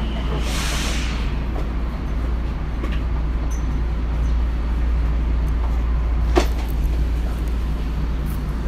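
Tokyo Metro 02 series subway train standing at an underground platform, humming steadily. A short hiss of air comes about half a second in, and a sharp click with a brief squeal about six seconds in.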